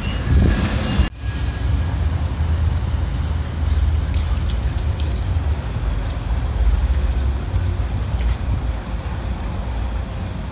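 Steady low outdoor rumble with faint jingling, as of dog collar tags, while dogs play on gravel. A brief loud noise fills the first second and then cuts off suddenly.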